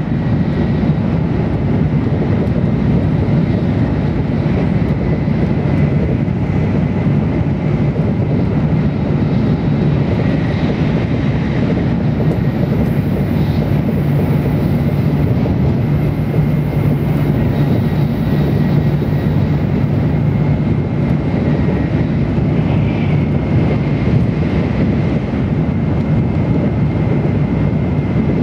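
Tokaido Shinkansen train running, heard inside a passenger car: a steady low rumble with a faint high whine held throughout.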